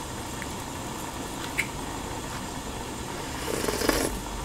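A large pot of ramen broth simmering steadily on a portable gas stove, with a few faint clicks. About three and a half seconds in comes a short slurp as broth is sipped from a wooden spoon.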